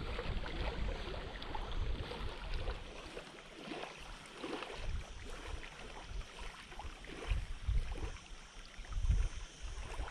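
Wind buffeting the microphone in gusts, over small waves lapping at a lakeshore.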